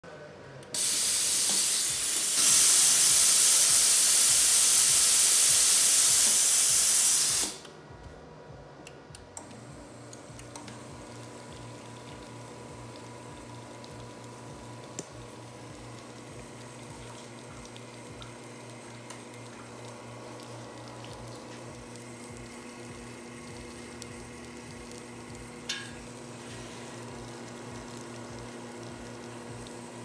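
Mavam under-counter espresso machine: a loud steam hiss starts just under a second in, grows louder about two seconds in and cuts off suddenly at about seven and a half seconds. After a short lull the machine runs with a steady hum as water pours from both group heads, with a few small clicks.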